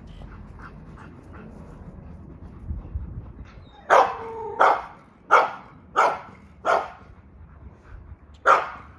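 A dog barking: five loud barks in quick succession from about four seconds in, then a single bark near the end.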